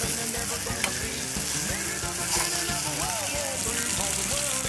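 Marinated chicken breast sizzling in hot oil in a frying pan, a steady frying hiss, with a sharp click about a second in.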